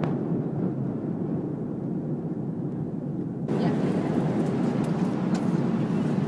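Steady cabin noise of an Airbus A330-200 in cruise, an even low rumble of engines and airflow. About three and a half seconds in it changes abruptly to a slightly louder, brighter hiss with a few faint clicks.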